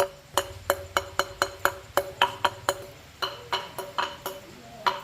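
Hammer tapping on a metal part that rings at the same pitch with every blow, about three or four uneven strikes a second, with a short pause near the middle.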